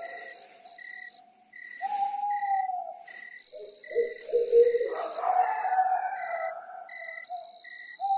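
Night-forest ambience: an owl hooting several times over a steady cricket chirp, about two chirps a second, with a higher insect trill that starts and stops.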